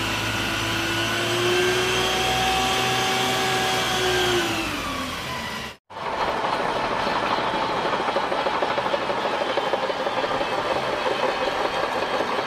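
An Isuzu water tanker truck's engine running with a steady whine over the hiss of its water cannon, the pitch sliding down at about five seconds. After a brief break, a Shantui crawler bulldozer's diesel engine and steel tracks give a fast, even clatter.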